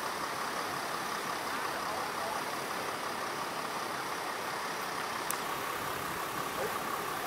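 Steady engine noise of idling vehicles, with one brief tick about five seconds in.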